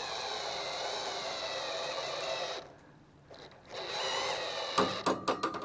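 Wood-Mizer sawmill's hydraulic pump motor running with a steady whine as a toe board raises one end of the log, stopping, then running again briefly. A quick series of sharp clicks and knocks follows near the end.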